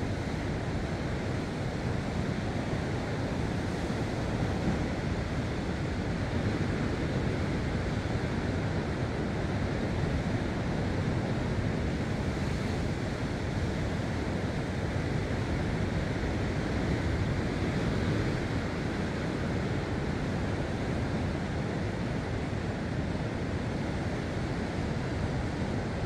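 Steady surf of sea waves washing on a rocky shore, a constant low rush with some wind on the microphone.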